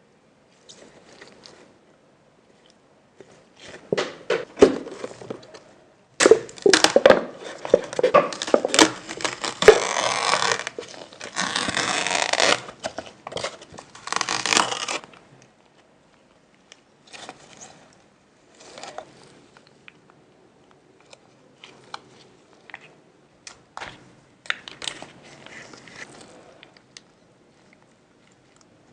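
Food-preparation handling sounds: crinkling, tearing and crushing in bursts, loudest and densest through the middle, then sparser clicks and rustles.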